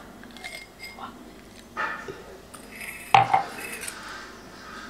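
A few scattered clinks and knocks of a drinking glass being handled and set down on a table, with the boiled egg inside it. The loudest knock comes about three seconds in.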